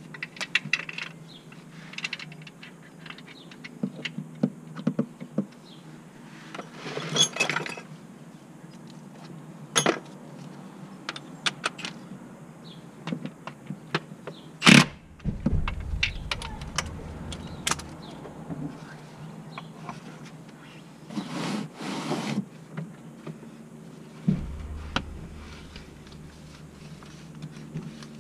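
Metal hand tools clinking, tapping and scraping against the gearbox of a BMW 330d during a clutch replacement: scattered clinks and clicks, with short runs of rapid clicking and one sharp loud knock about halfway through.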